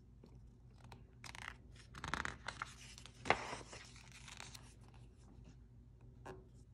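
A page of a large picture book being turned by hand: paper rustling and flapping for a few seconds, loudest about two and three seconds in. A short tap near the end.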